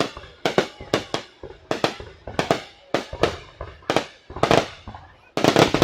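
Aerial fireworks going off in quick succession: a rapid series of sharp bangs, several a second, each trailing off briefly, with a dense burst of bangs near the end.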